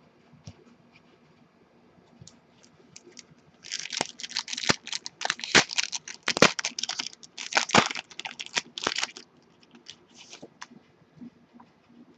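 Foil wrapper of a Topps Strata football card pack torn open and crinkled by hand. It is a dense run of crackling and tearing from about four seconds in until about nine seconds, with a few faint ticks of handling before and after.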